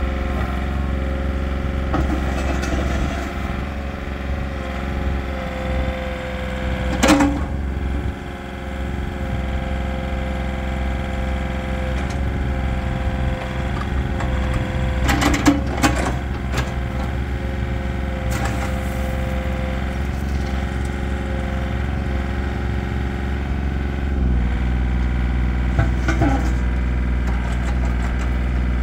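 Komatsu PC20-7 mini excavator's small diesel engine running steadily while the operator works the hydraulic boom and bucket. A few sharp clanks come through, and about three quarters of the way through the engine note deepens.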